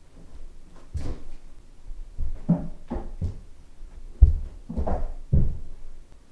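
A run of dull thuds from feet landing and pushing off a carpeted floor and hands and feet striking a wooden coffee table during vaults and spins. The loudest thud comes a little past four seconds in.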